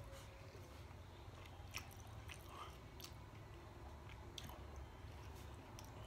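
Faint chewing of a mouthful of soft food (rice, gravy and macaroni), with a few light clicks as a metal fork works through the plate.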